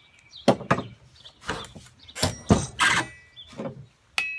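1/2 inch square steel bar stock being worked while it is bent: about eight irregular metal knocks and clanks, several followed by a brief high ring.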